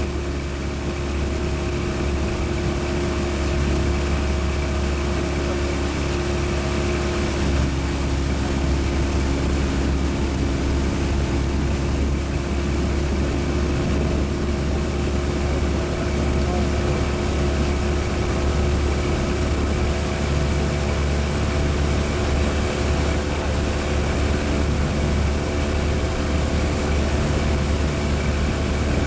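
A motorboat's outboard engine running steadily at constant speed: an unbroken drone with a low rumble underneath and several steady tones over it.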